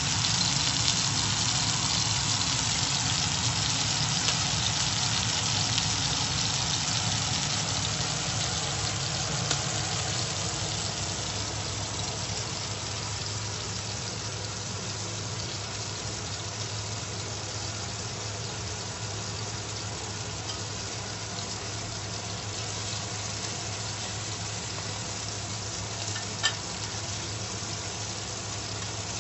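Seasoned beef steak sizzling as it sears in oil in a nonstick frying pan. The sizzle eases off over the first ten seconds or so, then holds steady. A single sharp click comes near the end.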